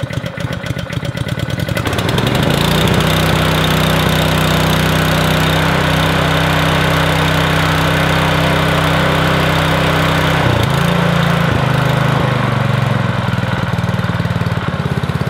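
Freshly pull-started Honda GX200 single-cylinder engine on a rototiller, running on choke. It runs unevenly for the first two seconds, then settles into a loud, steady run, with a brief shift in pitch about ten seconds in.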